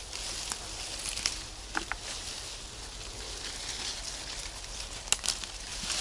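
Leafy branches of a cornelian cherry tree rustling as berries are picked off by hand, with a few sharp clicks from twigs and berries.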